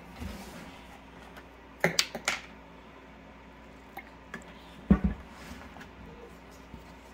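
A few short clicks and knocks, then a heavier dull thump about five seconds in, like things being handled and set down on a kitchen counter.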